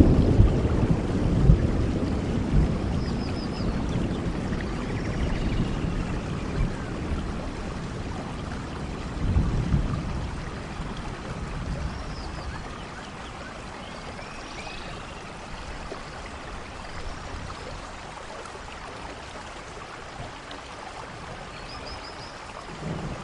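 Steady rain with thunder rumbling, the rumble dying away over the first several seconds and swelling briefly again about nine seconds in, then rain alone.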